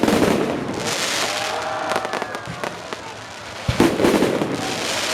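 Aerial fireworks bursting: a sharp bang at the start and another nearly four seconds in, with crackling in between.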